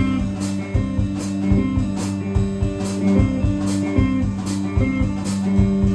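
Live music without vocals: guitar playing over percussion that keeps a steady beat of about two to three strikes a second.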